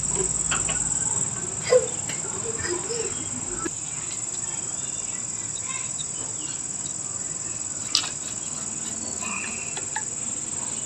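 A steady high-pitched cricket trill, with a few light clicks and knocks from handling the fan motor parts.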